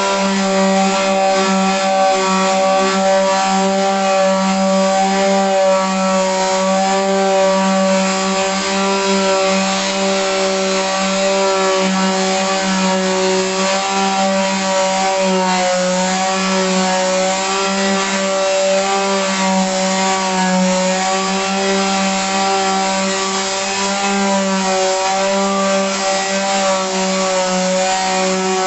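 Electric sander running steadily with its sandpaper on wood, stripping old varnish; an even motor hum over the rasp of the paper, the pitch dipping slightly now and then.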